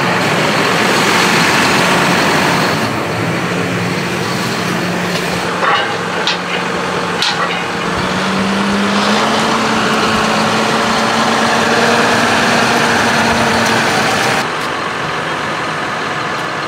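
John Deere tractor's diesel engine running steadily, its note rising slightly about halfway through, with a few short clicks and knocks around the middle.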